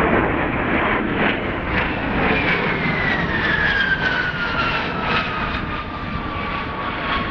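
Airplane flying past. Its engine whine slides steadily down in pitch as it goes by, over a continuous noisy roar.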